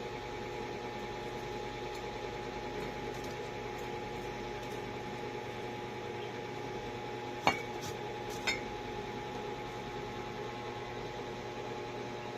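Steady hum with several held tones, broken by two sharp clinks about a second apart past the middle; the first is louder.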